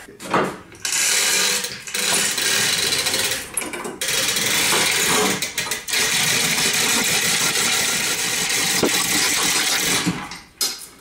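Manual chain hoist hauled by its hand chain, the chain rattling and clattering through the hoist as it raises a heavy load. It goes in long pulls with brief pauses between them and stops near the end.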